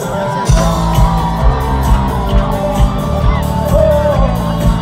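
Live band playing at a concert through the PA: the full band comes in strongly about half a second in with a beat about twice a second, under a male singer's voice, with whoops from the crowd.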